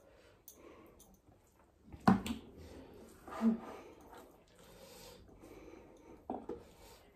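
Close-up eating sounds: fingers squishing and mixing rice on a plate and soft chewing, with a sharp knock about two seconds in and a smaller one near the end.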